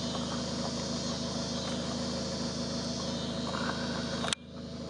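A car engine idling steadily under a hiss of outdoor background noise. Near the end it cuts off suddenly with a click, then comes back quieter.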